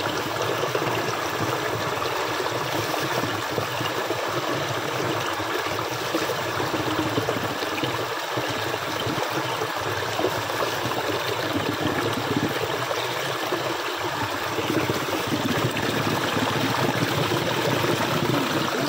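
Steady rush of stream water flowing and splashing.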